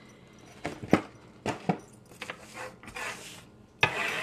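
Clear plastic bag crinkling and rustling as it is handled: a few sharp crackles, then a longer, louder rustle near the end.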